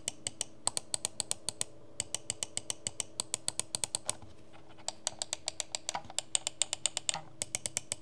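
Main buttons of a Havit gaming mouse clicked rapidly, sharp clicks about six or seven a second in runs broken by brief pauses about two seconds and four and a half seconds in.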